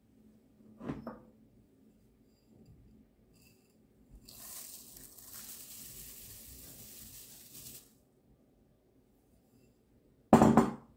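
Dry rolled oats poured from a cup into a ceramic bowl onto wet batter, a steady hiss lasting about four seconds. A short knock about a second in, and a louder, sharp knock near the end.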